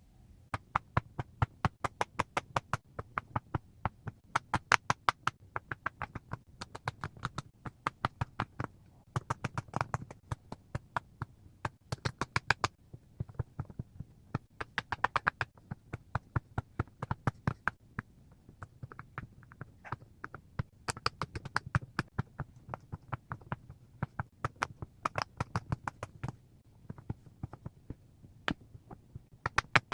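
Rapid, irregular tapping and clicking, in quick runs of several sharp taps with short gaps between.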